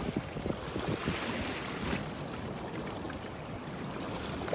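Wind buffeting the microphone over the wash of open sea water against a boat, a steady rushing noise with a few stronger gusts in the first two seconds.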